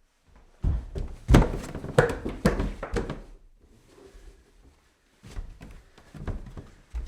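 Footsteps climbing a staircase, heavy thudding treads at roughly two a second. The steps are loudest in the first three seconds, stop briefly, then go on more quietly near the end.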